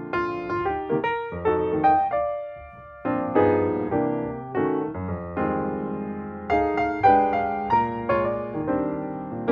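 Piano music: chords and melody notes struck and left to ring, with a short lull about two and a half seconds in.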